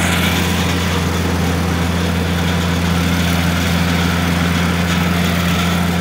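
Combine harvester's diesel engine running steadily, a constant low drone that does not change.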